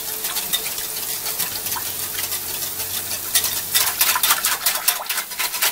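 Wire whisk beating milk and cream in a glass bowl: rapid ticking of the wires against the glass with a light liquid slosh, getting faster and louder about halfway through.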